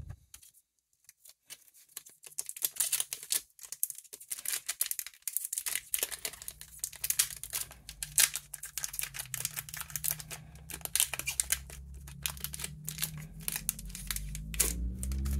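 Foil trading-card booster pack wrapper crinkling and crackling as it is crumpled and torn open by hand, starting about two seconds in.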